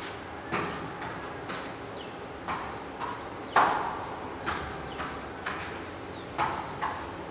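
Thuds and slaps about once a second from a barefoot person doing alternating knee strikes on a foam mat, each with a short room echo; the loudest comes about three and a half seconds in.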